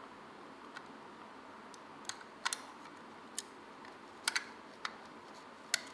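Small sharp clicks and taps, about eight at irregular intervals, from the plastic parts of a Logitech G Pro X Superlight computer mouse being handled and fitted back together.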